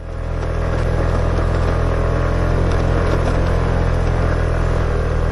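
Motor scooter running steadily while being ridden, with road and wind noise.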